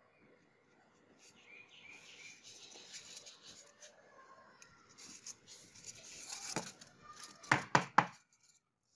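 Paper template and polystyrene foam block being handled on a tabletop: paper rustling and foam squeaking as they rub together, then three sharp knocks near the end as the block is set down on the table.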